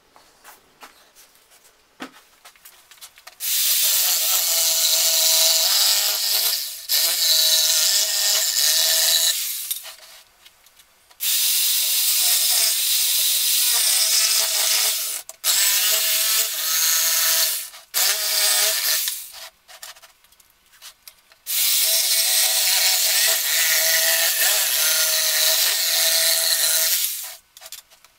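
Handheld power drill running in about six bursts of a few seconds each, starting about three seconds in, with short stops between them. It makes a steady high-pitched whine together with the hiss of the bit working in wood.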